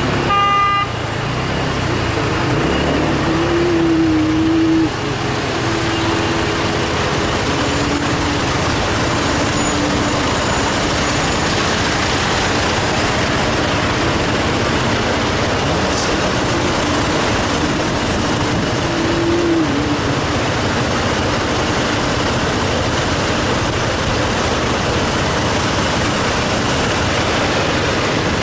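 Steady wind and road noise on the microphone of a moving motor scooter in city traffic, with an engine hum that wavers up and down. A short beep right at the start.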